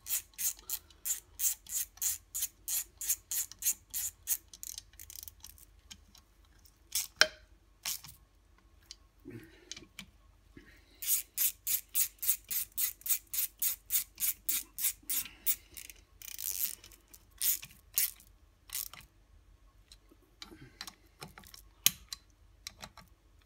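Hand ratchet clicking in quick, even runs of about five clicks a second as cover screws on an alternator are tightened, with a few louder single knocks in between.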